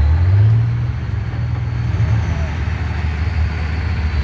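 Off-road trial truck's engine running at low revs as the truck crawls over the course; the engine note rises about half a second in, then eases back after about two seconds.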